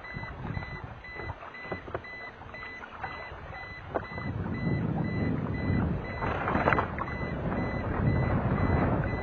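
Rapid, evenly spaced high electronic beeping with no letup, under rough low rumbling noise that grows louder about four seconds in.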